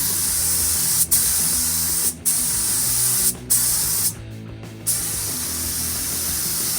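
Compressed-air paint spray gun hissing as it lays on paint. The spray stops briefly three times and pauses for most of a second about four seconds in, as the trigger is released between passes.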